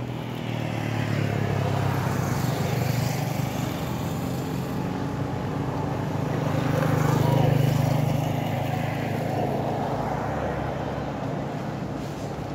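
Motor vehicles passing on a road over a steady low engine hum, with the loudest pass swelling up and fading about seven to eight seconds in.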